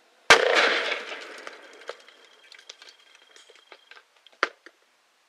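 A firecracker taped to a butane blowtorch canister goes off with one sharp, loud bang, followed by a fading crackle and scattered clicks and rattles for a few seconds, with one louder click near the end.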